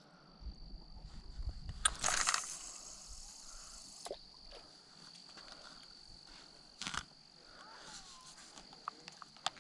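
A cast with a spincast fishing reel: a click about two seconds in, then line hissing off the reel for about two seconds, cut off by another click as the reel is engaged; another click comes later. A steady high insect drone runs underneath.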